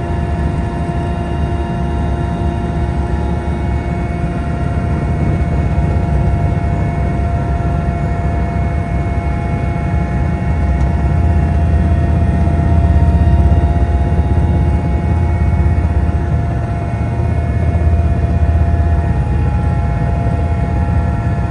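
Aircraft engine drone heard from on board, a loud steady low rumble with several steady tones over it, swelling slightly about midway.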